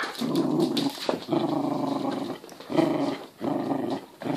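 Cockapoo puppy growling in play, four drawn-out growls with short breaks between them.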